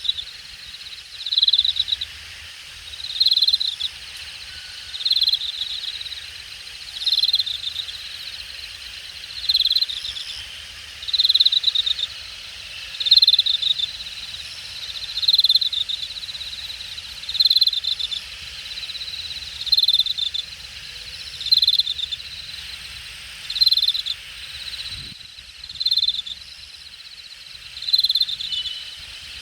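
Late-summer grass insects singing: one loud insect repeats short buzzy bursts about every two seconds over a steady high trill from others, with a faint low rumble underneath.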